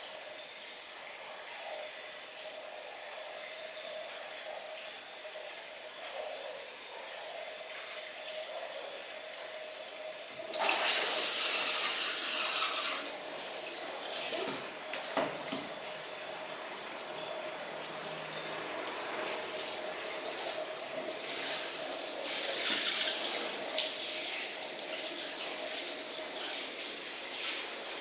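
Water spraying from a handheld shower head onto hair over a shampoo basin. The spray is fairly quiet at first, turns much louder all at once about ten seconds in, then rises and falls as it moves over the head.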